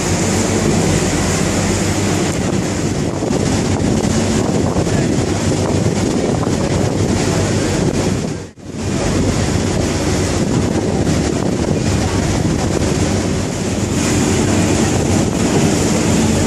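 Wind buffeting the microphone on the open deck of a moving passenger ferry, over the steady hum of its engines and water rushing past the hull. The sound cuts out for a moment about halfway through.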